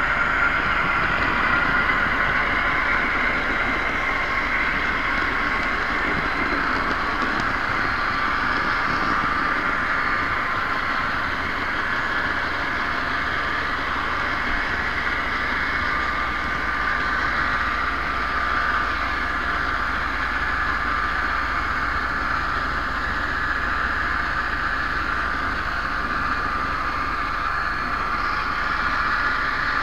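Model train running steadily along the layout track, heard from a camera riding on it: a continuous, even motor and wheel noise with a steady whine in it.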